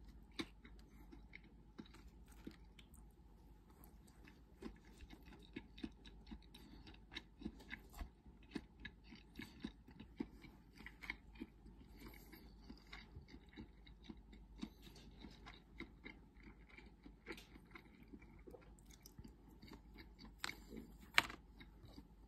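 Close chewing with light clicks of wooden chopsticks against a plastic bento tray, at an uneven pace. A sharper clack comes near the end as the chopsticks are set down on the tray.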